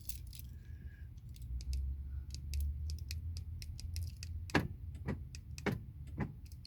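Small metallic clicks and light rattling from a threaded-on metal door lock knob being handled and tried on the car door's lock pin. There are four sharper clicks from a bit past halfway, over a steady low hum.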